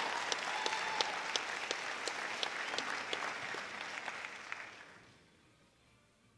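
Audience applauding, with a few sharp individual claps standing out; the applause dies away about five seconds in.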